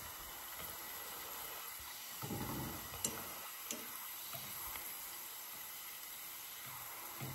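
Sliced garlic frying in hot oil in a small stainless saucepan: a steady, quiet sizzle. Wooden chopsticks tick twice against the pan about three seconds in as the slices are stirred.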